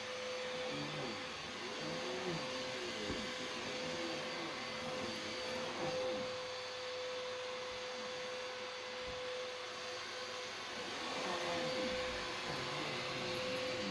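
Vacuum cleaner running steadily: a constant whirring hiss with a steady mid-pitched motor whine.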